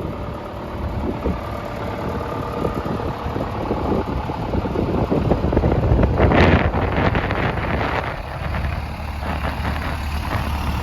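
John Deere 6220 tractor's diesel engine idling steadily, with a brief louder rushing noise about six seconds in.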